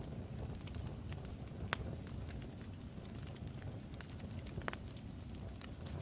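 Crackling fire: a steady low rumble with irregular sharp pops and snaps, the loudest pops about two seconds in and near five seconds.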